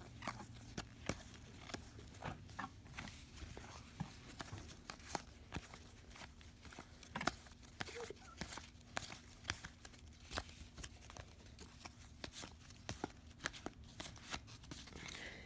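Panini hockey trading cards being flipped one at a time through a stack held in the hand: a run of irregular short flicks and clicks of card stock, about two a second.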